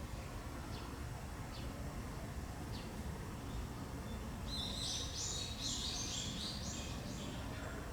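A songbird calling: a few short, high chirps, then a quick run of high notes starting about halfway through, over a steady low background rumble.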